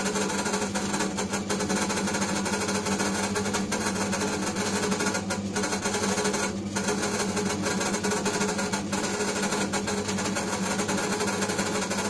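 Electric dough-kneading machine running steadily, its motor giving a constant low hum as the hook turns through flour and water in the steel bowl.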